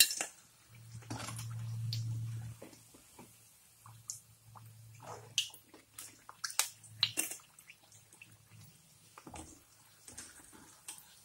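Ivy gourd bajjis deep-frying in hot oil, bubbling. A metal slotted spoon scrapes and clinks against the pan several times in the middle as fritters are lifted out, over a low hum that comes and goes.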